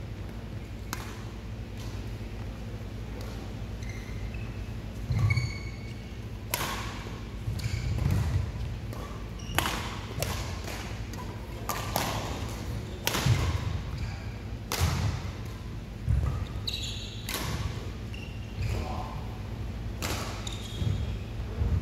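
Badminton rally: rackets striking the shuttlecock with sharp cracks about every one to two seconds, with players' footfalls and lunges thudding on the court and short shoe squeaks between the hits.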